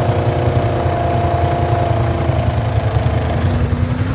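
Side-by-side UTV engine idling steadily, with a slight rise in pitch near the end.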